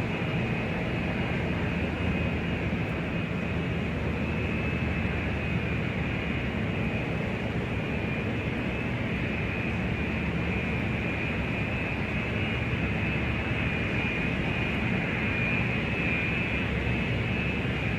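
Large airport ambience dominated by jet aircraft engine noise: a steady rumble with a high whine that grows a little stronger near the end.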